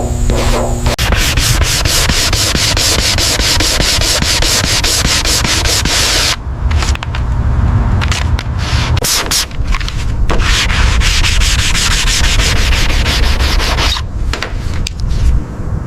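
Sanding: abrasive rubbed over a surface in quick, repeated scratchy strokes that ease off briefly about six seconds in and again near the end.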